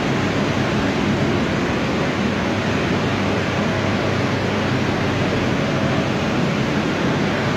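Blue air-mover blowers of a heat-drying setup running steadily, pushing air through flexible ducting into flood-wet cabinetry as a loud, even rush of air.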